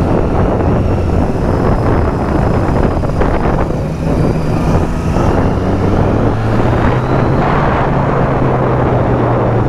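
Triumph Street Triple 675's inline three-cylinder engine running steadily while the motorcycle cruises, under a heavy rush of wind and road noise.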